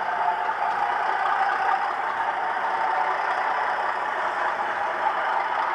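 Model diesel locomotive with a sound fitting, playing a steady engine-running sound.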